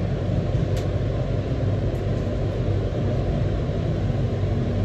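Steady low rumble with a hiss, the noise inside a turning observation-wheel gondola.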